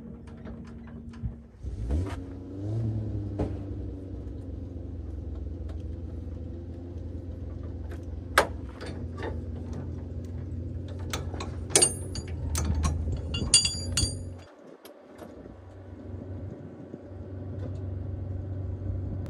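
Jeep Gladiator engine running steadily, setting in with a rising sweep about two seconds in. Several sharp, ringing metallic clinks come in the middle of the run, and the engine sound dips briefly near the end before it picks up again.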